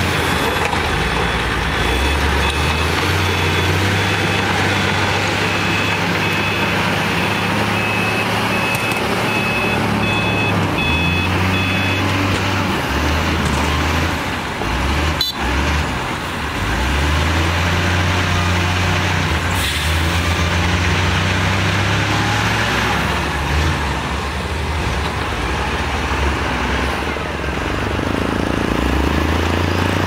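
Heavy diesel engines of a LiuGong B160C bulldozer and dump trucks running at work, the engine note rising and falling with load. A reversing alarm beeps steadily, then stops about twelve seconds in.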